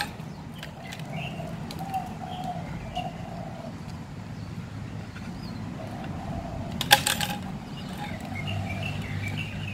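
Birds calling softly, short repeated calls over a low steady background hum, with one brief loud clatter about seven seconds in from the dog's chain against its metal tether pipe.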